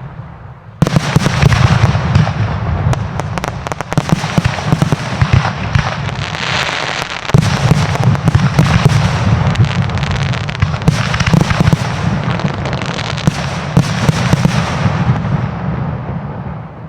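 Fireworks going off in a dense, unbroken barrage of bangs and crackling that starts suddenly about a second in and dies away near the end.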